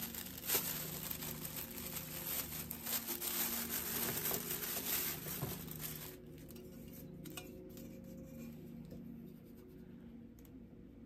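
Packaging crinkling and tearing as items are unwrapped by hand, busy for about the first six seconds and then quieter, with occasional light handling clicks.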